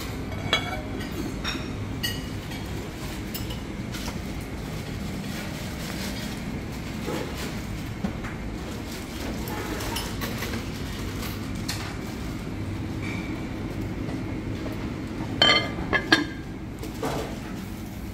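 Steady low hum of a buffet dining room, with scattered clinks of crockery and utensils; the loudest, a quick cluster of sharp clinks, comes near the end.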